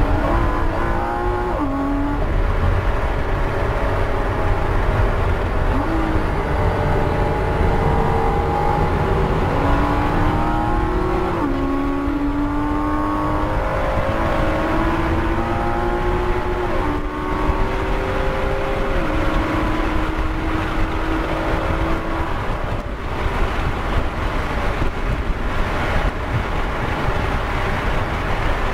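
Porsche Cayman S flat-six engine heard from inside the cabin, running hard at high revs under full acceleration on track. Its pitch climbs and then drops sharply at each of several upshifts. Later the sound becomes a steadier rush of engine, tyres and wind at speed.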